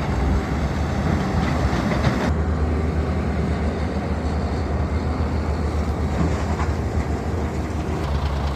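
Heavy diesel earth-moving machinery running steadily, a deep low engine drone under broad mechanical clatter.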